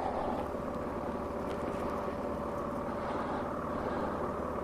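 A car driving slowly, heard from inside the cabin: steady engine and road noise with a faint steady whine.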